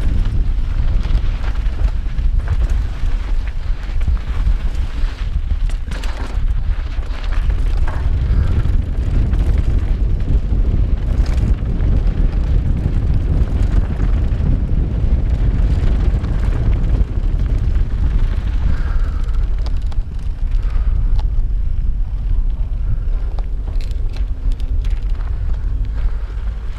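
Heavy wind buffeting on a helmet-mounted action camera's microphone, riding down a dirt mountain-bike trail, a steady deep rumble mixed with tyre noise. Scattered knocks and rattles from the bike come through it as it runs over rocks and bumps.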